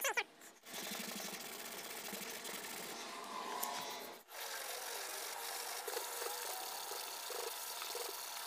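Hand block sanding of a car door's paint: sandpaper on a small block rubbing steadily over the panel, with a short break about halfway. The dent is being blocked flat to show its high and low spots.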